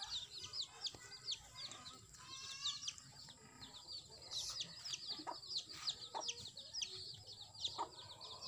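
Chicks peeping without pause, many short high calls a second, with a native mother hen clucking low now and then.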